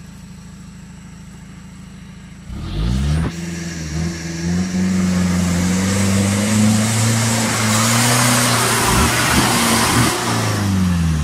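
Off-road 4x4's engine idling, then revved hard about two and a half seconds in and held at high revs as the wheels churn through deep mud, with a rising hiss of spinning tyres and flung mud; the revs drop near the end.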